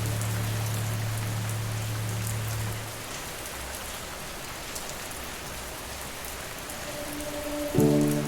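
Steady rain, an even hiss with scattered drop ticks. A low held musical tone fades out about three seconds in, and a new soft chord comes in near the end.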